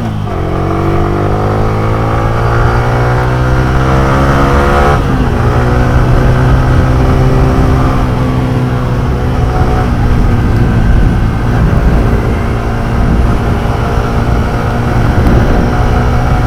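Motorcycle engine accelerating, its pitch climbing for about five seconds, then running fairly steadily at speed.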